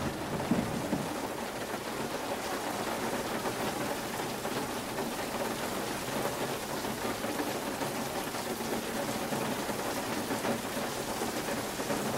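Steady rain falling, the drops pattering on a car's hood and roof.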